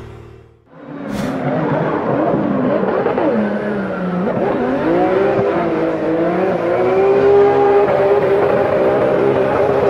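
Drift car engine revving hard during a smoky donut, its pitch swinging up and down and then held high near the end, with the tyres spinning. The sound fades in under a second in.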